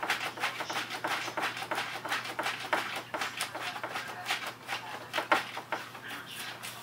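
Paper rustling and crinkling as a cat paws and pulls at papers on a shelf, a fast irregular run of small crackles and scrapes.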